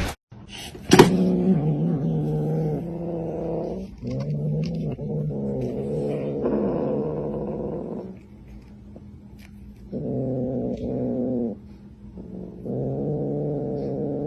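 A cat yowling in several long, drawn-out calls, with a pause of about two seconds in the middle.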